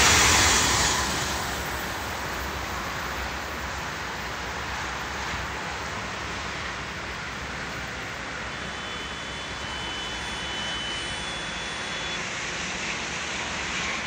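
Whoosh KCIC400AF high-speed electric train rushing past and receding, its loud whoosh fading over about the first second and leaving a steady rushing noise.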